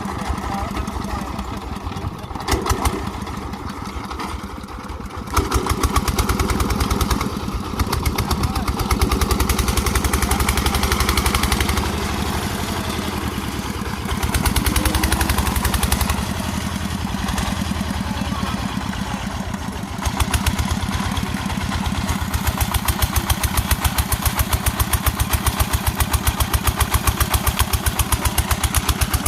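Engine of a rice harvesting machine running with a rapid, even pulse, getting louder a few seconds in and again near the end as the load or throttle changes.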